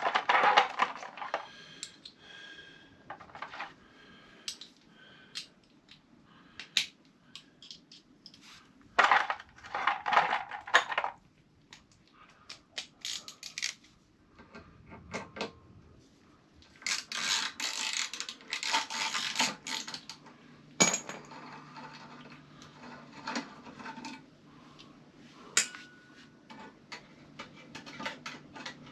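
Hand tools and small metal parts clinking and clattering in irregular bursts, with a few longer rattling stretches, as a motorcycle's fasteners and parts are undone and set down.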